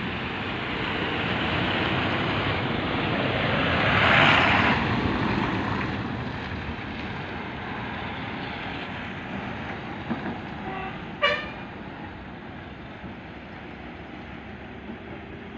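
A KSRTC bus's diesel engine running as the bus rounds a hairpin bend, growing louder to a peak about four seconds in as it passes closest and then fading away. A short vehicle horn toot sounds about two-thirds of the way through.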